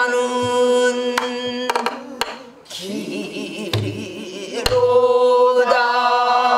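A woman singing pansori in long held notes with wavering ornaments, with a brief break about two and a half seconds in. She accompanies herself on a buk barrel drum: a few low thumps and sharp stick strokes.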